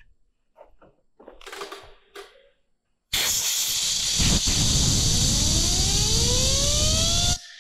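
Compressed air hissing hard for about four seconds, with a whine under it that rises steadily in pitch as the blast spins a part up; it starts and cuts off suddenly. Before it come a few faint handling clicks.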